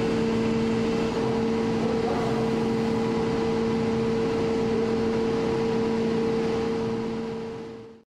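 Steady hum of machinery and ventilation in a robotic car-body paint shop, with two constant low tones over a rushing noise. It fades out near the end.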